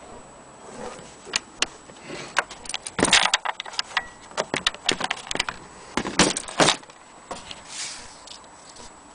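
A run of light clicks, taps and small rattles of hard parts being handled, busiest about three seconds in and again about six seconds in.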